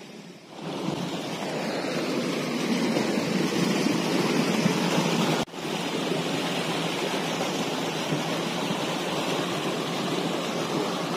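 Waterfall rushing: a steady, loud wash of falling water that swells in over the first second and drops out for an instant about five and a half seconds in.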